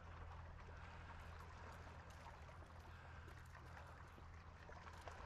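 Faint water lapping and trickling against a boat hull over a low steady hum, near silence overall.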